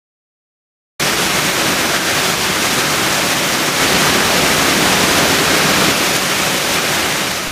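Loud, steady rush of flowing water, cutting in suddenly about a second in after a second of silence.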